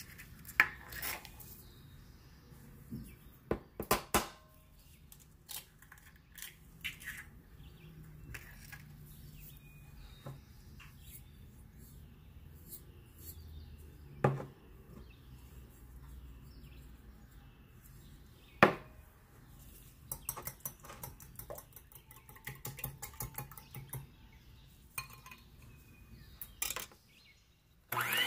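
Glass bowls and a wire whisk clinking and knocking on a table, with a few sharp clicks, then a long run of quick light taps of a whisk against a glass bowl beating egg yolks. Right at the end an electric hand mixer switches on.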